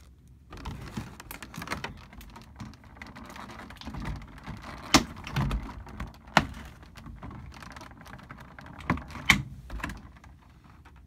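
Clear plastic packaging being handled: a steady crinkle and rustle with a few sharp clicks, the loudest about five seconds in, six and a half seconds in and near nine seconds.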